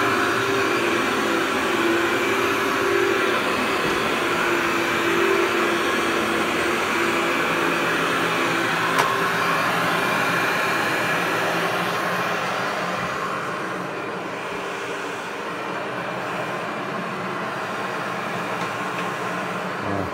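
Oxy-Dry Workhorse upright vacuum cleaner running steadily on carpet, with a held hum under its airflow noise. It turns a little quieter and duller about two-thirds of the way through, and there is a single small click about halfway.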